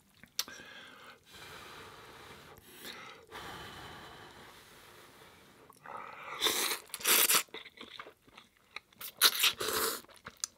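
A man slurping and chewing instant ramen noodles. A soft breathy hiss runs for the first three seconds. Loud slurps follow about six seconds in and again near the end.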